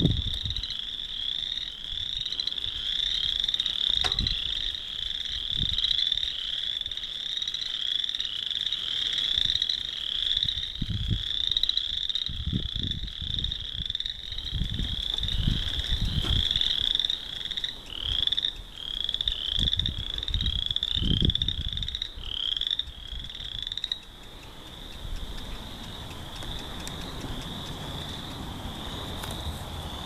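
A dense chorus of frogs: many short, rising calls overlapping into one continuous high-pitched chorus, growing fainter about four-fifths of the way through. Low thumps and rumbles come and go underneath.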